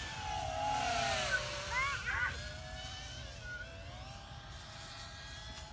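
Racing quadcopter's brushless motors whining in flight, loudest about a second in as it passes, the pitch sliding down and then wavering with the throttle. Low wind rumble underneath.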